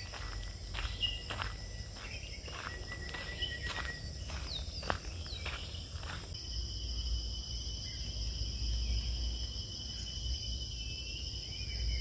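Plantation forest ambience: insects droning steadily at a high pitch, with scattered short bird chirps and footsteps on a path through the first half. About halfway through the footsteps stop and the insect drone grows louder, joined by a second, lower steady tone.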